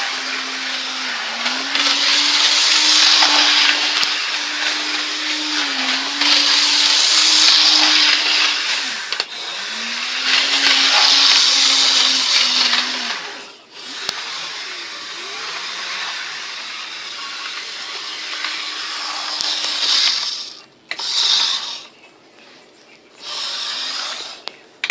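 Electric toy train running along its track: a steady motor whir with a rushing hiss that swells and fades. The whir dips in pitch briefly now and then, breaks off about 13 seconds in, resumes, and stops about 20 seconds in.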